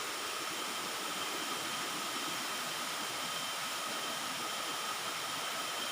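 Waterfall: falling water rushing with a steady, even hiss and no breaks.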